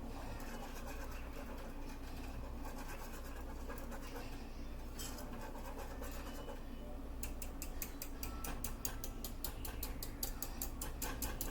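A utensil scraping and stirring in a saucepan of thickened homemade cream of chicken soup, over a steady low hum. From about seven seconds in come quick, even ticks, about six a second.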